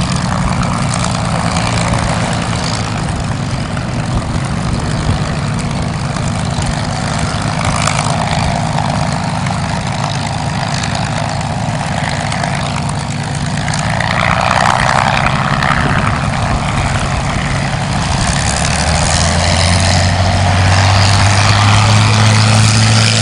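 Supermarine Spitfire Mk IX's Rolls-Royce Merlin V12 running at low power as it taxis, a steady low engine note that grows louder near the end.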